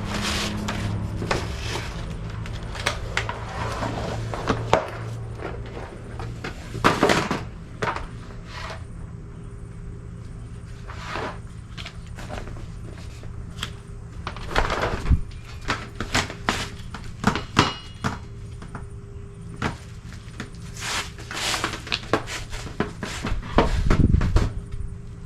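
Irregular knocks, clicks and rattles of a lawnmower grass-catcher bag and its frame being handled and fitted together, with some rustling in between.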